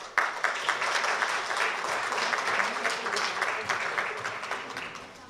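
Audience applauding, starting suddenly right after a speech ends and fading out over the last second or so.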